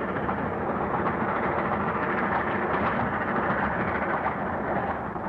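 Steam-hauled express train running: a steady rumble with a faint, continuous clatter.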